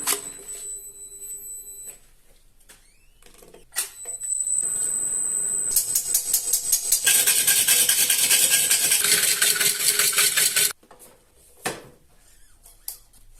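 Wood lathe running with a high whine, then a turning tool cutting into the spinning wooden bowl blank: a loud, harsh, rapidly pulsing cutting noise for about five seconds that stops suddenly.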